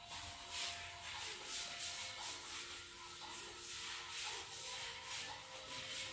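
Rubbing, scuffing noise repeating every half second or so, the handling noise of a phone being carried while walking.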